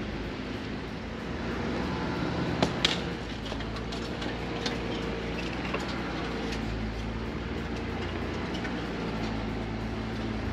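Stock Jeep Rubicon running steadily as it drives the trail, with scattered light clicks and a couple of sharp knocks close together about two and a half seconds in.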